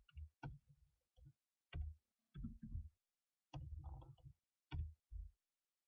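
Computer keyboard keystrokes: about ten short, irregular clicks and taps as code is deleted and retyped.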